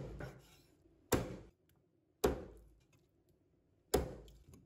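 A cleaver chopping black-boned (silkie) chicken into small pieces on a chopping board. There are three sharp chops a second or more apart, each dying away quickly.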